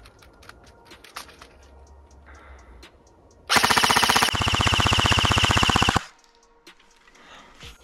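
Specna Arms J71 Core electric airsoft AK-74 replica firing a single full-auto burst: a fast, even rattle of the gearbox cycling shots for about two and a half seconds. It starts about three and a half seconds in and stops abruptly.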